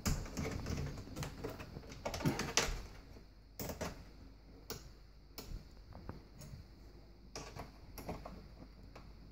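Metal mounting tabs being slid and clicked into the slots along the top front edge of a dishwasher: a string of irregular clicks and light knocks, loudest around two seconds in.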